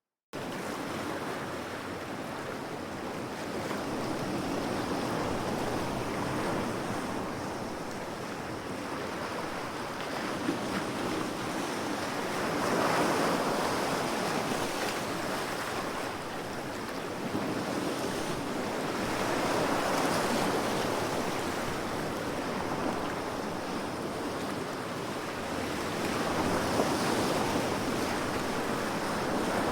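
Ocean waves washing on a shore: a steady rush of surf that swells and falls back about every seven seconds. It cuts in suddenly just after the start, out of silence.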